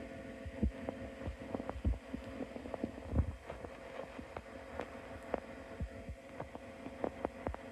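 Ninja Foodi 8-in-1 multi-cooker running with a steady hum, overlaid by irregular clicking and knocking. This is the unwanted noise the owner complains of, here with the appliance still cold.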